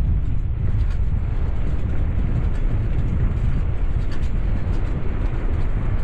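Wind buffeting the microphone of a GoPro on a bicycle coasting fast downhill: a steady low rumble of wind noise.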